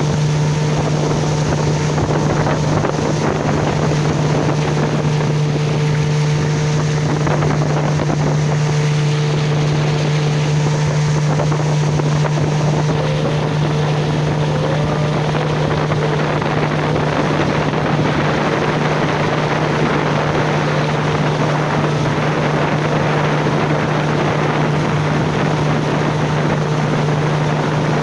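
Motorboat engine running steadily at constant speed, one unchanging hum, with water rushing past the hull and wind buffeting the microphone.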